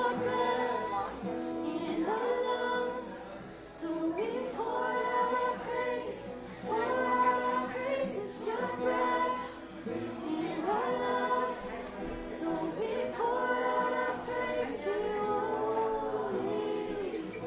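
Acoustic guitar playing with female voices singing a song in phrases of a couple of seconds each.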